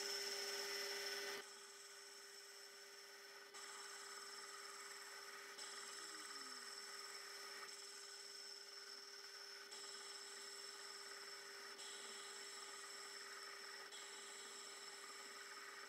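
Metal lathe running under power while single-point cutting a 3/4-16 thread on a steel shaft with the lead screw engaged: a faint, steady hum and whine from the machine, its level stepping up and down every couple of seconds.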